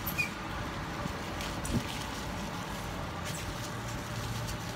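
Steady background din of a busy street market, with a low hum under it and a couple of short knocks near the start.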